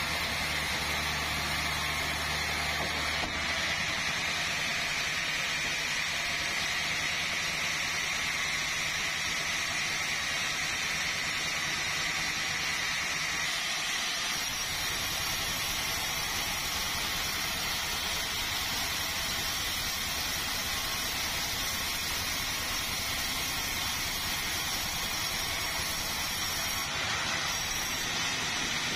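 Sawmill machinery running steadily, an even hissing and whirring noise with a low engine hum underneath that drops away about three seconds in.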